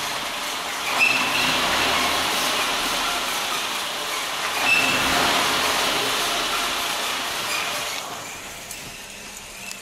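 Renault Logan squeaking and creaking over running road noise, with two short high-pitched squeaks, about a second in and near five seconds. The noise drops away after about eight seconds.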